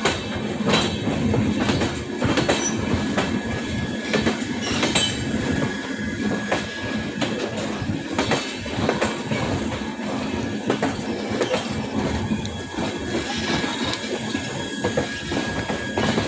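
Express passenger train rolling slowly into a station: a low rumble with irregular clacks and knocks from the wheels over rail joints and points, and a thin steady wheel squeal.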